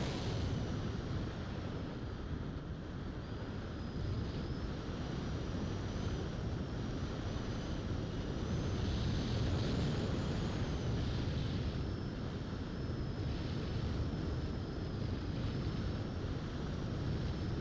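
Opterra electric model flying wing in flight, heard from on board: a thin, high motor whine that wavers in pitch, rising briefly about ten seconds in, over steady rushing wind on the microphone.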